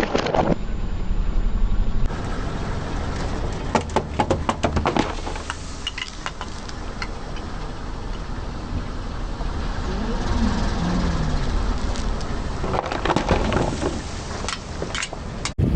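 A car's engine running low as a tyre rolls over and crushes objects, with two spells of crackling and snapping, the first about three seconds in and the second near the end.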